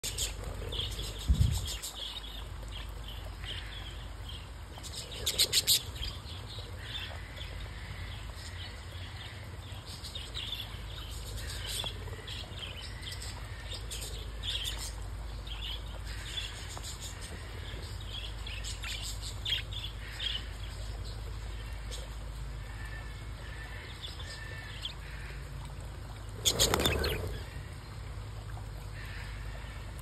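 A flock of budgerigars chattering with many short, high chirps while feeding on scattered seed, over a steady low hum. There is a low thump near the start, a quick run of louder clicks about five seconds in, and a louder rustling burst near the end.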